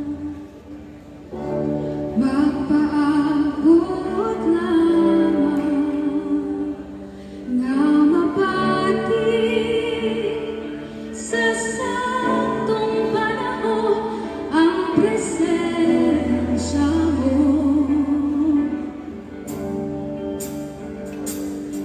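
Live band playing a worship song: a woman sings with vibrato over keyboard, bass guitar, electric guitar and drums, with a few sharp drum hits near the end.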